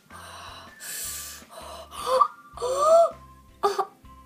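A girl's voice: two sharp, breathy gasps, then two wordless cries that slide up and down in pitch, and a short one near the end.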